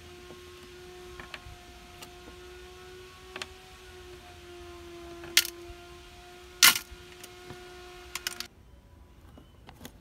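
Sharp clicks and taps of small plastic and metal parts as an RC car chassis is handled and taken apart, two louder clicks standing out in the middle, over a steady low tone that cuts off suddenly near the end.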